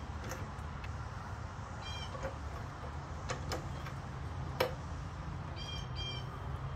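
Hydraulic floor jack being pumped to lift the front of a lawn tractor: short high squeaks, once alone and twice in pairs, and a few sharp clicks.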